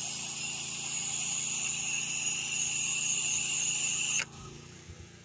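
Pressure-washer wand spraying a stream of rinse water onto house siding: a steady hiss with a high whistling tone and a low hum beneath. The spray cuts off suddenly about four seconds in, leaving only the faint hum.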